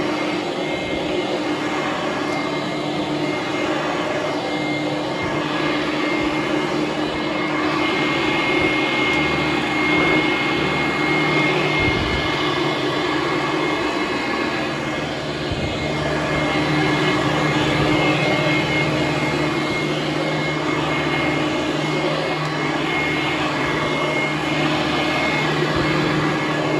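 Hoover Conquest upright vacuum cleaner running steadily with a high whine, its motor note swelling and easing slightly as it is pushed back and forth over carpet.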